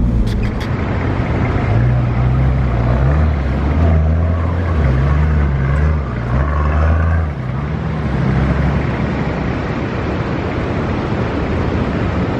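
Four-wheel-drive vehicle's engine running under load while driving, its revs rising and falling several times, over steady wind and tyre noise.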